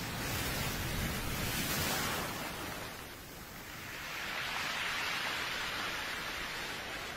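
Sea surf washing on a shore: a steady hiss that swells, falls away about three seconds in, and swells again as the next wave comes in.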